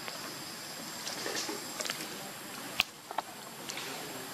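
Scattered crackles and taps as young macaques scramble over dry leaf litter and onto a tree trunk, the sharpest click nearly three seconds in, over a steady hiss of forest background.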